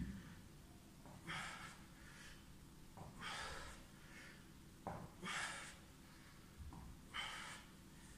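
A man's hard exhalations from exertion, four of them about two seconds apart, one with each rep of a side-plank crunch.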